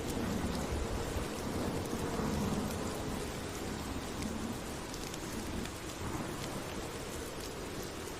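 Steady rain falling, with a low rumble of distant thunder that swells and fades over the first three seconds or so.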